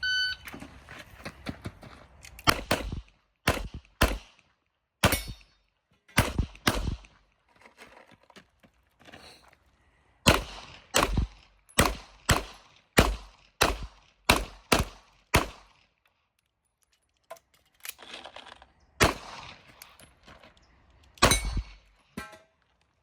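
A shot-timer start beep, then a CZ Shadow 2 pistol fired in quick pairs and fast strings. There are short pauses between the strings while the shooter moves or reloads.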